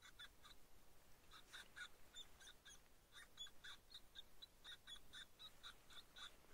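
Faint string of short, high-pitched chirping calls, several a second, with brief pauses between groups.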